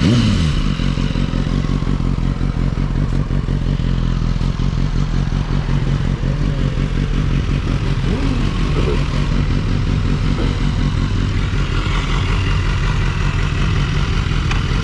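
BMW S1000RR inline-four superbike engine running at a steady pace while being ridden, under a steady rush of wind noise. The engine pitch drops briefly right at the start, and there is another short pitch change about eight seconds in.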